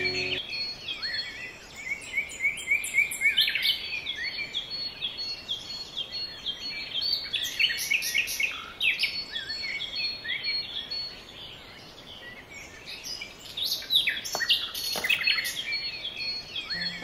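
Songbirds chirping and twittering, with many quick, overlapping calls and two brief clicks near the end.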